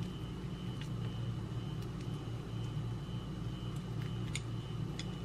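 A steady low hum with a faint high whine runs throughout. Over it come a few light clicks near the end, from chopsticks pushing shrimp paste into a green pepper.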